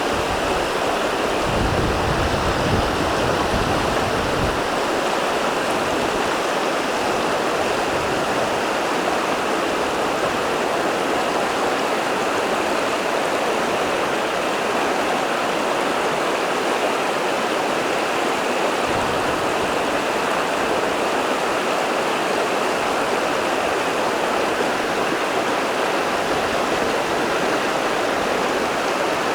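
A river running steadily over rocks, a continuous rushing of water.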